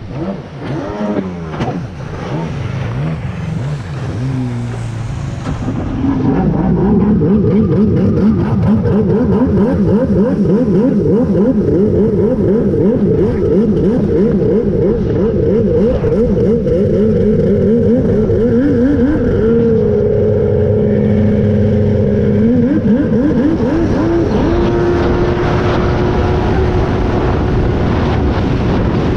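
Kawasaki 1100 two-stroke jet ski engine under way. Its pitch wobbles at low speed for the first few seconds, then it gets louder about six seconds in and its note rises and falls rapidly. Near the end it settles into one steady high note.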